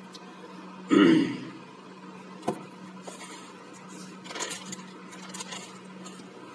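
A paper notebook being handled and its pages flipped over: a loud rustle about a second in, a sharp click midway, then softer paper rustling. A steady low hum runs underneath.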